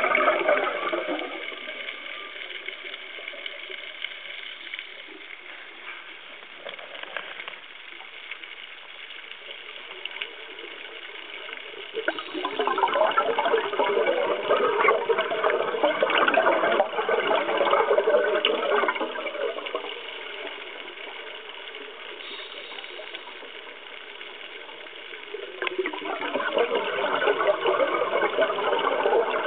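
A scuba diver's regulator breathing heard underwater: long spells of rushing, gurgling exhaust bubbles, one at the start, one midway and one near the end, with a quieter hiss between them.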